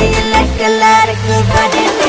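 Background electronic dance music with a steady beat and deep bass.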